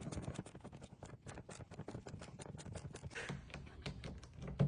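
Ratchet wrench clicking in a rapid, uneven run as it drives a T25 Torx screw back in to secure a car door's lock cylinder. A louder knock comes at the very end.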